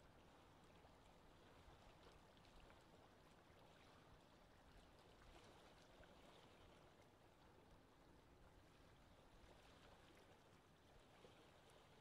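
Very faint lapping water, an even wash with no distinct events.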